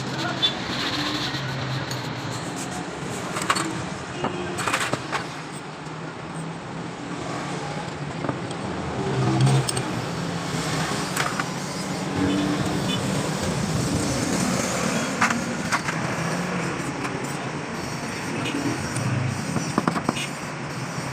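Steady street traffic noise with scattered sharp metal clicks and knocks, typical of hand tools at work on a motorcycle.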